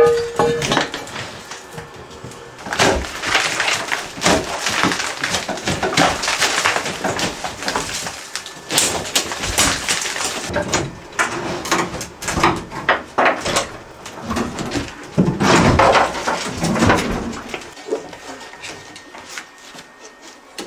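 Demolition of a bathroom wall: drywall cracking and crunching as pieces are torn away, with irregular knocks and clatter of falling debris.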